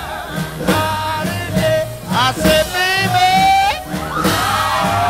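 Music playing over a club sound system: a sung vocal line with wavering, held notes over a steady bass beat of about two pulses a second.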